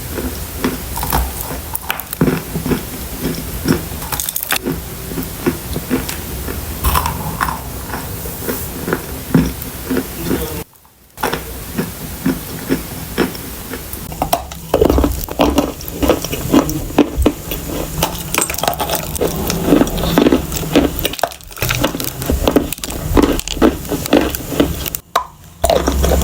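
Close-miked crunching and chewing of edible clay: a dense run of small crisp crunches and crackles, breaking off briefly twice.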